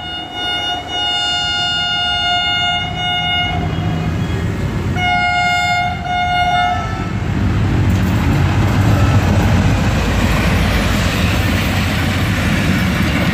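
Pakistan Railways diesel locomotive's multi-tone horn sounding two long blasts as the train approaches. The second blast stops about seven seconds in. The locomotives and train then pass close by with a loud rising engine and wheel rumble.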